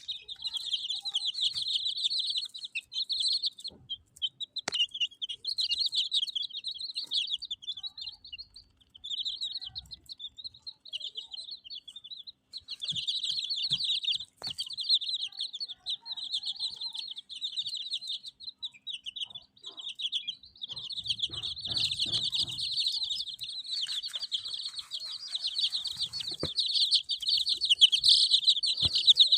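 Baby chicks peeping continuously, many rapid high-pitched cheeps overlapping, with a few soft knocks and thumps among them.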